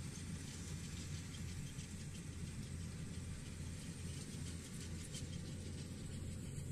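Rice combine harvester's engine running with a steady low drone.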